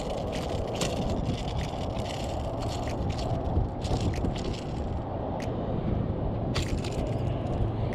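Steady wind rumble on the microphone over open, choppy water, with scattered light clicks and rattles from the caught spotted seatrout and the hard-bodied lure hooked in its mouth as they are handled.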